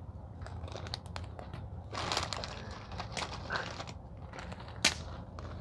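Crinkling and crackling of a chip bag being handled as chips are taken out, with one sharp snap near the end.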